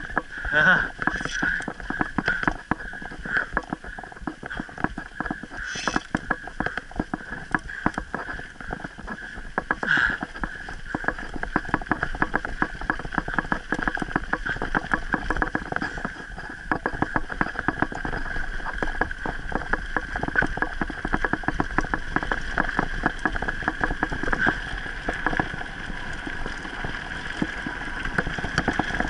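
Mountain bike rolling over a dirt and gravel trail: tyres crunching and the bike rattling with many small knocks over the bumps, over a steady high buzz.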